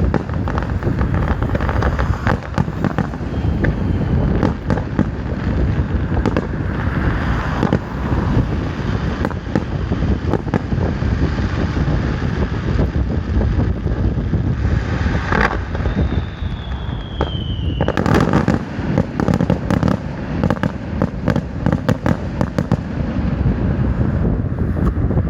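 Fireworks bursting continuously, with dense crackling and popping and heavy booms throughout. Loud reports come about halfway and again near two-thirds in, and a falling whistle sounds between them.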